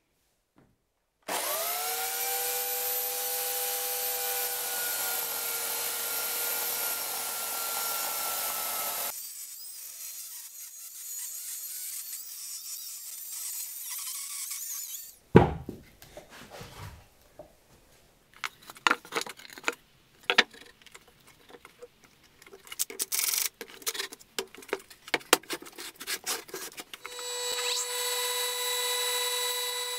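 Corded electric chainsaw running and cutting into a spalted log, its motor whine sagging slightly under load, then running more quietly. A single sharp knock about halfway through, then a run of irregular knocks and clatters. Near the end a bandsaw motor starts with a short rising whine and runs with a steady hum.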